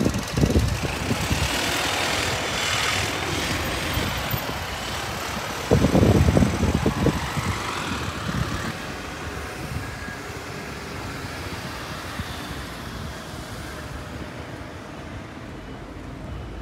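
A bus passing on a street in traffic, its rush of engine and tyre noise building over the first few seconds and then fading away. Gusts of wind buffet the microphone briefly near the start and, loudest of all, about six seconds in.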